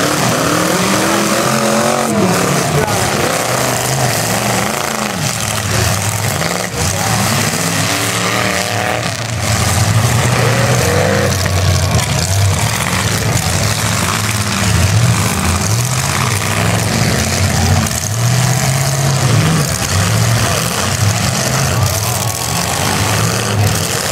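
Several demolition derby cars' engines revving hard over and over, their pitch rising and falling as the cars accelerate and ram each other.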